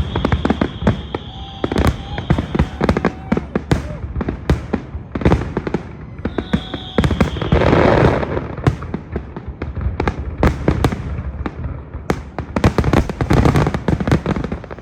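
Aerial fireworks display: a rapid, irregular barrage of shell bursts and booms, with crackling between them. A high steady whistle runs through the first few seconds and returns briefly about halfway through.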